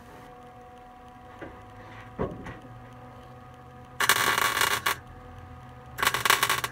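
Wire-feed welder striking two short tack welds on a steel floor patch panel, each a crackling burst under a second long, about two seconds apart, near the end. A light tap comes about two seconds in.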